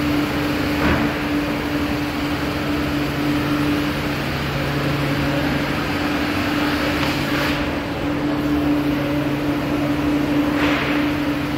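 Industrial brush sanding machine and its dust extractor running, a steady machine hum with a low tone over a noisy hiss, which surges briefly three times.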